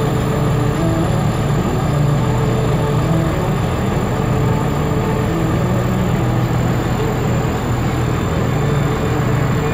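Old John Deere 4420 combine's diesel engine running steadily under load during soybean harvest: a constant low drone with a steady hum.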